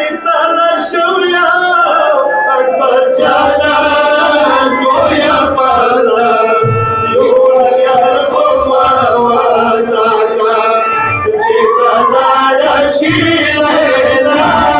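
Male voices chanting a matam mourning lament over a sustained organ-like keyboard accompaniment. From about halfway through, a low beat thumps every second or two.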